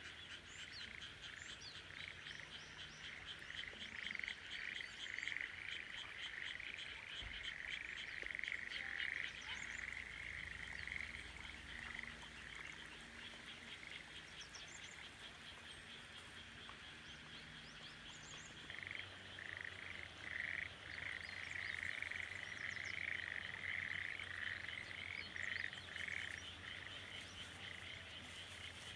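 A chorus of rice-paddy frogs croaking in rapid pulsed runs, thinning out about thirteen seconds in and swelling again in a second bout from about nineteen seconds.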